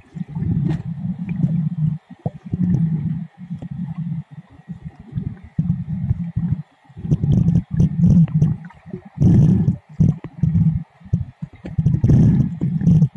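Muffled underwater rumbling that comes and goes in irregular low surges, with a couple of short hissy bursts, as water moves over a submerged camera's microphone.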